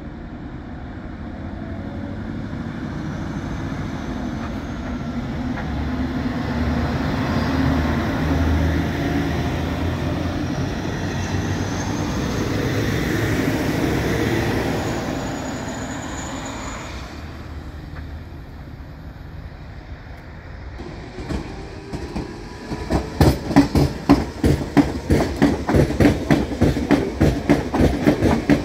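A diesel passenger train passing through at speed, its rumble swelling and then fading away. From about 21 s a Copenhagen S-train electric multiple unit runs past close by, its wheels clacking rapidly and rhythmically over the rail joints, louder than the first train.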